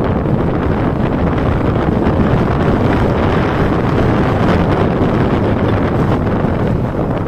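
Steady, loud wind rush buffeting the microphone of a mountain bike riding fast along a paved road.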